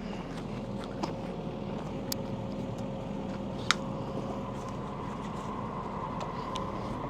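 An engine running steadily at idle, a constant hum, with a few light clicks or knocks about a second, two seconds and nearly four seconds in.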